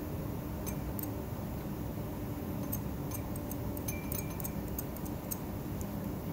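Light, irregular clicks and scrapes of a spatula against a porcelain Büchner funnel, scraping white trimyristin crystals out into a glass beaker; the clicks cluster around the middle. A steady low hum runs underneath.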